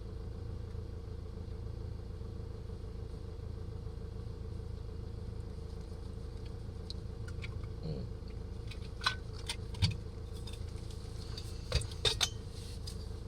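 Engine idling steadily with a low hum. A few sharp clicks and clanks come in the last few seconds.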